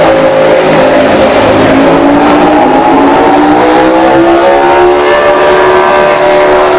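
Racing motorcycle engine at high revs under load. Its pitch climbs slowly for about five seconds, then holds steady.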